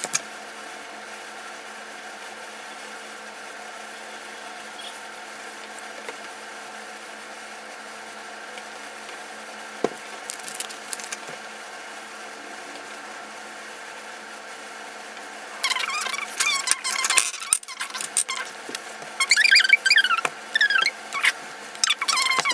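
A colouring pen squeaking against paper in short, irregular strokes, starting a little past halfway, over a steady low background hum.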